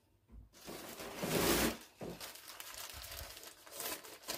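Clear plastic garment bag crinkling and rustling as it is picked up and handled, loudest about a second and a half in, then quieter rustling.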